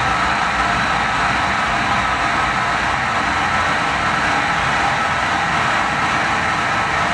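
Live harsh noise music from electronic gear: a loud, unbroken wall of noise, strongest in the middle of the range, with no beat, pitch or pauses.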